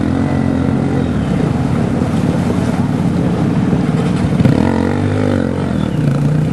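Dirt bike engine revving under load as its rear wheel spins in a shallow rocky river, churning up water spray. The revs rise and fall about four to five seconds in.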